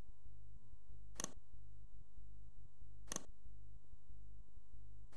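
Computer mouse clicking, a quick press-and-release each time: twice about two seconds apart, and once more at the very end, over a steady low hum.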